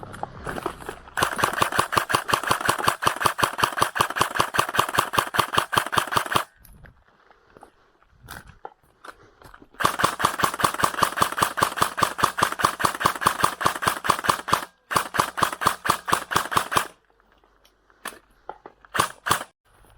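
Airsoft gun firing on full auto: three long bursts of rapid, evenly spaced shots, then a couple of single shots near the end.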